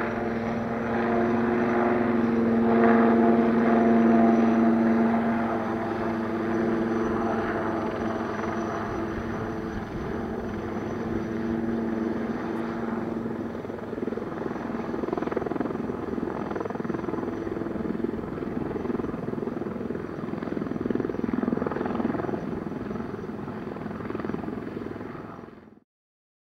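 Military helicopter flying and hovering overhead, its rotor and turbine engine running with a steady hum of a few held tones. It is loudest a few seconds in and cuts off abruptly near the end.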